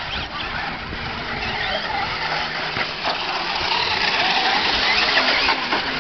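Several battery-powered radio-controlled monster trucks racing on a dirt track, their electric motors whining up and down in pitch as the drivers work the throttle, getting a little louder toward the end.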